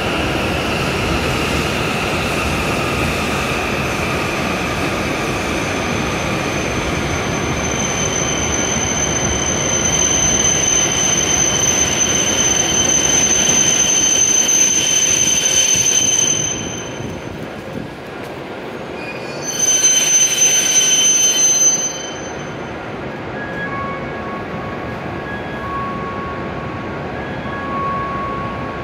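E7 series Shinkansen train pulling in and slowing to a stop. Its whine falls in pitch over the first few seconds, then a high steady squeal runs for many seconds. The squeal breaks off and returns briefly before the train comes to a standstill, after which the sound turns quieter with a few faint short tones.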